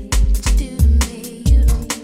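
Background music with a heavy bass beat and sharp percussion hits, in a hip hop / R&B style.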